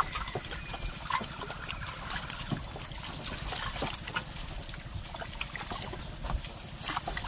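Water splashing and trickling as hands pick through a net of prawns in shallow water, with scattered small clicks and taps.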